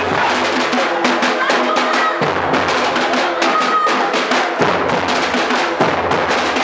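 Group of shoulder-strap drums, large bass drums (surdos) among them, beating a fast, dense rhythm together, with a crowd's voices chanting and shouting along.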